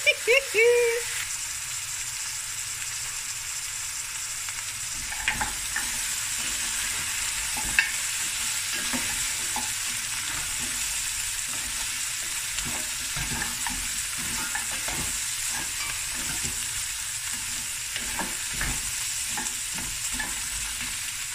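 Beef bones, onions and garlic sizzling steadily as they fry and brown in oil in a stainless steel pot. From about five seconds in, a wooden spoon stirs them, with irregular knocks and scrapes against the pot.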